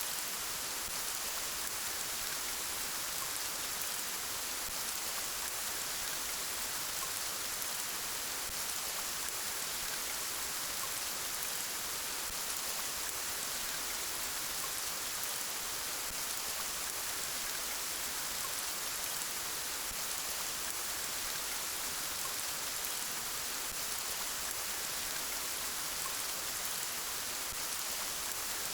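Steady, even rain falling, a constant hiss of drops with no change or single events standing out.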